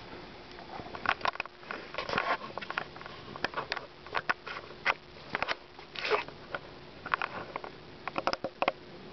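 Quokkas feeding on gravelly sand: irregular sharp clicks and short crunches of nibbling and scratching at the ground, a few louder ones around the middle.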